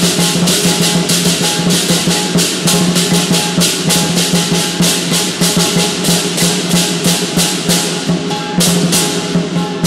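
Southern lion dance percussion band playing: a large lion drum beaten fast, with cymbals crashing several times a second over a steady low ringing tone.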